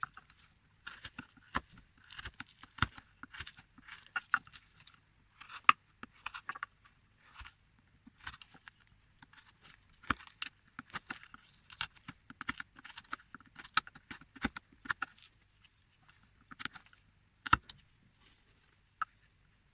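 Hand-carving a small figure: a carving tool scraping and nicking the material in short, irregular strokes, with a few sharper clicks now and then.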